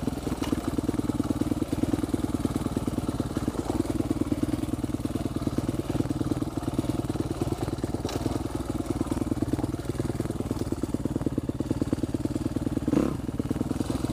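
Husqvarna 250 four-stroke dirt bike engine running steadily at an even engine speed as the bike rides a rough downhill dirt trail, with a louder moment near the end.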